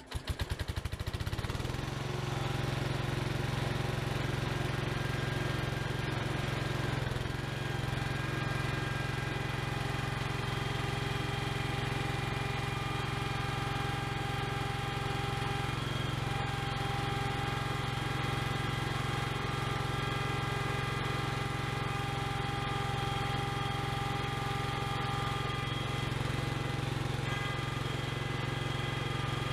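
Small forklift's engine running steadily as the forklift creeps slowly forward, with a steady whine above the engine note.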